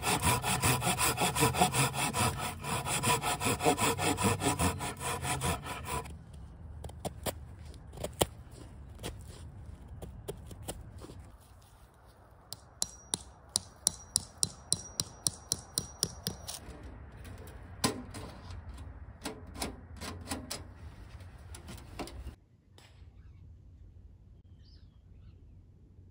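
A folding saw cutting through a dry, weathered log with quick back-and-forth strokes for about six seconds. Then scattered knocks, and in the middle a run of about a dozen sharp, ringing taps as a tent stake is driven into the ground.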